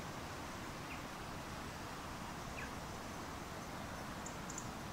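Steady outdoor background noise, with wind rumbling unevenly on the microphone. Two faint short chirps come about a second in and again about two and a half seconds in.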